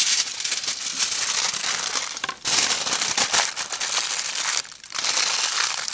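Aluminium foil crinkling and crackling as it is folded and crimped by hand around a fish. It comes in three long stretches with two short breaks.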